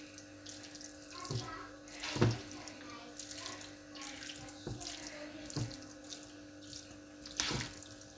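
Spatula stirring saucy pasta in a frying pan: wet, squelching stirring with irregular knocks of the spatula against the pan, the loudest about two seconds in. A faint steady hum runs underneath.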